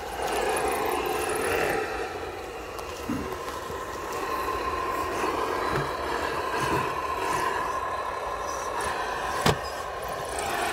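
Radio-controlled scale crawler driving slowly over logs and leaf litter: its electric motor and gearbox give a steady whine under the crunch of the tyres and body on wood. There is one sharp click about nine and a half seconds in.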